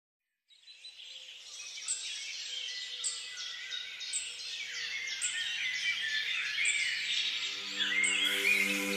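Birds chirping and calling together, with a short high call repeating about once a second, fading in at the start. Near the end, soft music with held notes comes in underneath.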